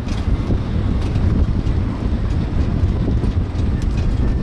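Steady low rumble of wind buffeting the microphone, mixed with road noise from a moving open-sided sightseeing cart.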